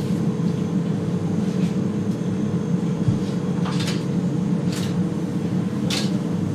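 Steady low hum of a restaurant kitchen's ventilation, with three light clicks of utensils about four, five and six seconds in.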